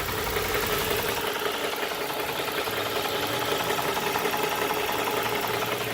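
2002 Nissan Maxima's 3.5-litre V6 idling steadily, with a knock faintly audible in its running that the owner suspects is rod knock.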